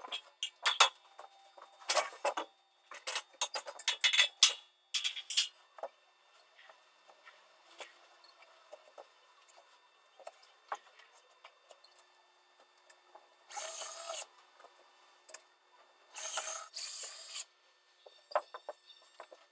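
Ceiling construction work: a run of sharp clicks and knocks from metal ceiling channels being handled and fixed. Later there are two short, loud bursts of rasping noise from tool work.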